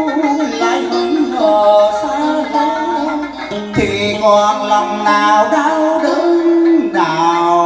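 Vietnamese cải lương music: a guitar and a đàn sến (two-string moon lute) playing plucked melodic lines with bending notes, with a man's singing voice over them.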